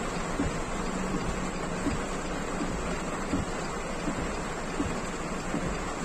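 Heavy rain falling on a car's roof and windshield, heard from inside the car: a steady hiss dotted with many small drop hits, over the low rumble of the car on the wet road.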